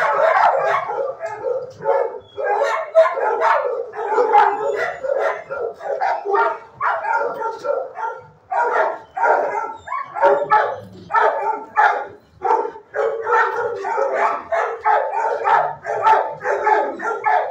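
Many dogs in shelter kennels barking nonstop, their barks overlapping in a dense, unbroken din.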